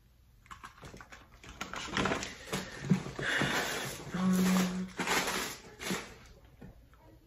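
Plastic packaging crinkling and rustling in irregular bursts as a bag is pulled out of a cardboard box.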